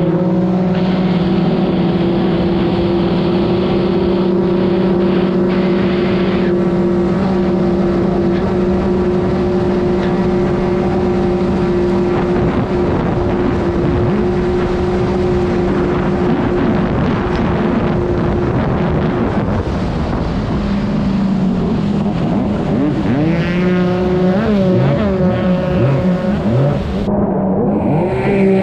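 Yamaha SuperJet stand-up jet ski running at full throttle, a steady high engine note with water and wind rush, held for about eighteen seconds. After that the note wavers and sweeps up and down as the throttle comes off and on.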